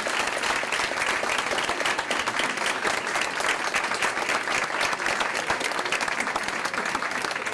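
A roomful of people applauding, a dense, steady clapping.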